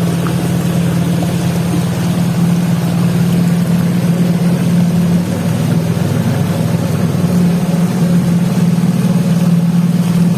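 A river boat's motor running steadily, a continuous low drone that dips briefly about five seconds in.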